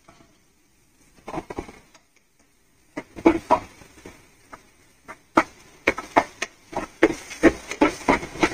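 Spatula knocking and scraping against a frying pan as chopped garlic is stirred in with the frying onions. There are a few taps at first, then a quick string of them from about halfway through.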